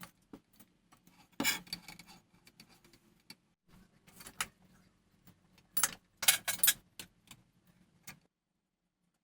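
Scattered clinks, clicks and short scrapes of small metal parts or tools being handled and set down, with the loudest rattles about a second and a half in and again about six seconds in. The sounds stop about a second before the end.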